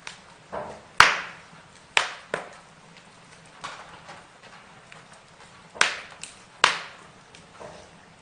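Burning wood crackling: irregular sharp pops and snaps over a faint steady background, the loudest about a second in and a pair of strong cracks near six and a half seconds.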